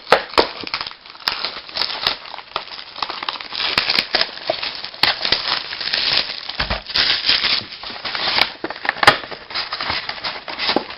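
Plastic wrapping on a box of baseball card packs crinkling and crackling as it is torn off and the packs are opened, with dense, irregular crackles throughout.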